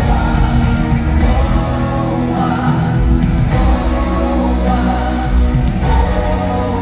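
Live pop band playing amplified through an arena sound system, with several voices singing together, recorded from within the audience.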